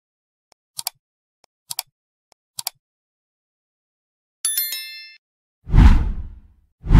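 Sound effects of an animated like-and-subscribe end screen. Three short pops come about a second apart, then a bright chime about four and a half seconds in, then two loud whooshes near the end.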